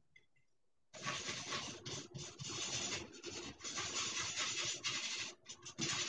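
Flat bristle brush scrubbing thinned oil paint, a dry scratchy rasp in back-and-forth strokes with short breaks, starting about a second in.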